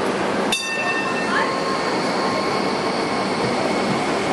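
Hong Kong Light Rail Phase 5 train running past on the track with a steady rumble. About half a second in there is a sharp clank followed by a ringing tone that fades within about a second.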